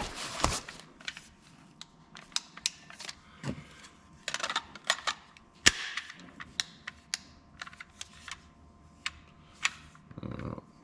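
Irregular sharp clicks and light knocks as a Milwaukee M12 cordless 3/8-inch ratchet and its kit are handled and unpacked, with a brief duller sound near the end.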